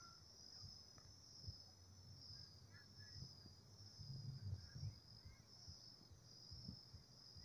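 Near silence, with a faint, steady, high insect trill and a few soft low knocks.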